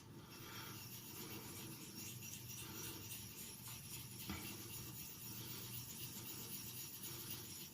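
Faint, steady scraping of a CTS XHP steel knife blade being stroked back and forth over a soft German slate natural whetstone worked with coticule slurry, at the pre-polishing stage.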